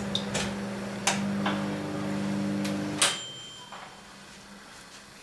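A steady electrical hum from a kitchen appliance, with a few light clicks, which cuts off about three seconds in with a loud click and a short high beep.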